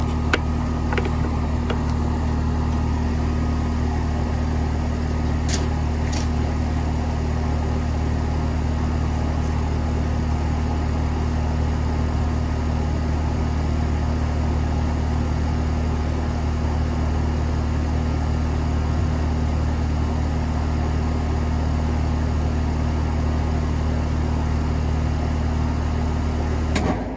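Carrier Sentry 3.5-ton straight-cool air conditioner's outdoor unit running with a steady hum from its Copeland scroll compressor and Broad-Ocean condenser fan, with a few light clicks early on. Near the end the unit shuts down: the hum cuts off suddenly and the sound falls away.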